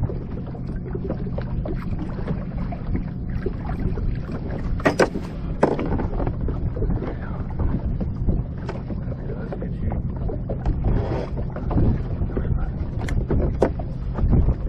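Wind on the microphone and water lapping against a small fishing boat's hull, a steady rumble. A few sharp clicks and knocks, the loudest about five seconds in, come from the line and tackle being handled.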